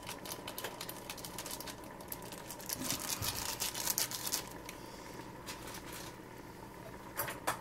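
Rapid light clicking and pattering from a pot of MAGGI instant noodles cooking in boiling water on the stove, busiest in the first half and thinning out after.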